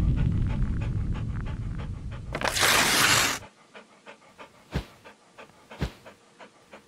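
A dog panting in quick rhythmic breaths over a low rumble that fades over the first two seconds. A loud hiss comes about two and a half seconds in, then only faint quick ticks and a few soft clicks.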